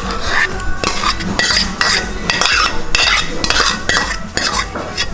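A spoon scraping and knocking against an earthenware dish as thick, wet tapioca mash is spooned into it, in repeated strokes about two a second.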